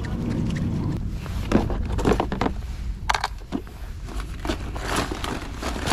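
Plastic lure packages rattling and crinkling as gloved hands dig through a canvas tackle bag full of packaged metal jigs, an irregular string of clicks and crackles starting about a second in.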